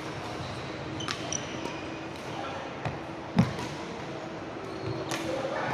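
Badminton play on a wooden indoor court: sharp clicks of racket strikes and thuds of feet on the floor, with brief high shoe squeaks. The loudest is a single thump about three and a half seconds in.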